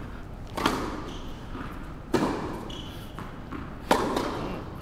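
A tennis ball struck and bouncing during a slow warm-up rally on an indoor court: three sharp pops about a second and a half apart, each echoing in the large hall.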